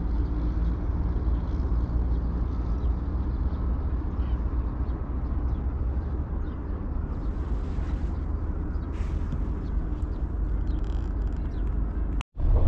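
Steady outdoor rumble and hiss, heaviest in the low end, that cuts out for a moment near the end.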